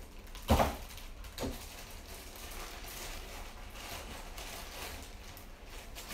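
Handling noise from a handheld phone: a short knock about half a second in and a softer one a second later, then faint steady hiss.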